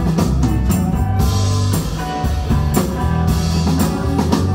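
Live rock band playing an instrumental passage: electric guitar and bass guitar over a steady drum-kit beat with cymbal hits.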